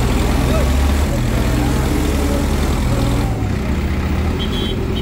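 Diesel tractor engine running, a low rumble whose pitch shifts up and down in the first few seconds, with voices of people around it.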